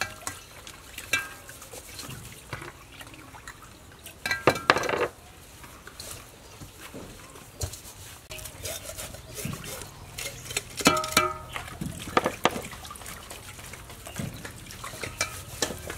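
Hands washing raw fish pieces in a stainless steel bowl of water, and vegetables in a plastic bowl: water sloshing and squelching, with scattered small knocks against the bowls.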